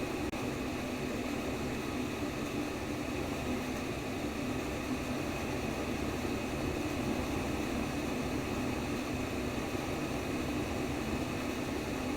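Steady sleep-aid white noise: an even, unchanging rushing hiss with a fuller low hum underneath, like a fan or air conditioner running.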